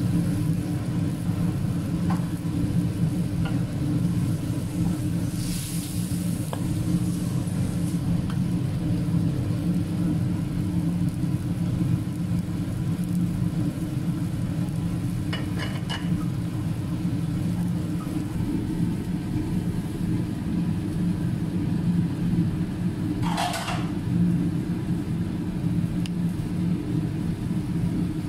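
Fava beans and minced pork simmering in a sauce of hot water in a wok, a faint sizzle over a steady low rumble. There are a few light clicks about halfway through and a short burst of hiss near the end.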